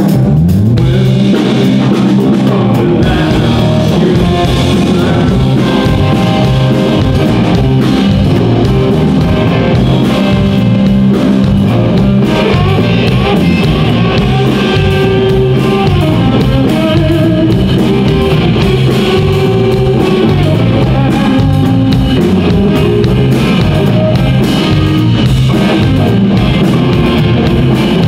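Live blues-rock band playing loud: electric guitar over bass guitar and drum kit, with a stepping bass line and a steady drum beat.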